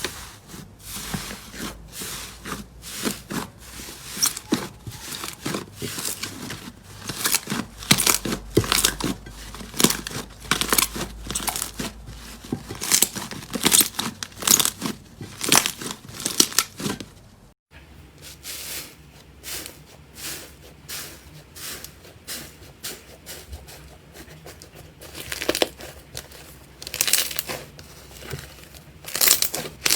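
Slime being squished and pressed by hand, making many short, irregular crackling and squelching noises; they break off briefly a little past halfway, then resume.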